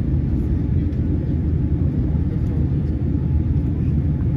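Steady low rumble of a jet airliner's cabin noise, heard from a passenger seat on final approach a few hundred feet above the ground.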